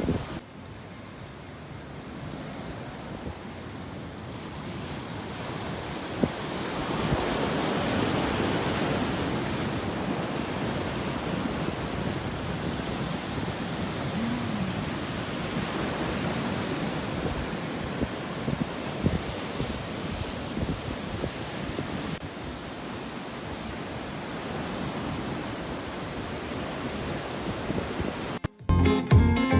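Ocean surf washing against the shore, with wind buffeting the microphone: a steady rushing that grows louder about seven seconds in. Music cuts in abruptly just before the end.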